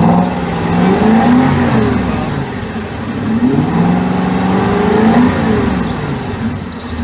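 Aston Martin V8 Vantage's V8 engine revved in a few blips, the pitch rising and falling each time, with the exhaust bypass valves closed in the factory default quiet mode: less throaty, lacking a rasp.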